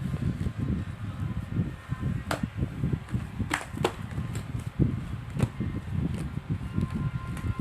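Fluffy slime being squished and worked by hand: a steady run of irregular soft squelches with a few sharp pops.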